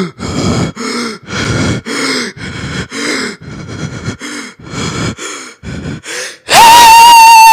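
A person gasping and grunting in a steady rhythm, about two short voiced breaths a second. About six and a half seconds in, a very loud, steady, high-pitched tone suddenly cuts in.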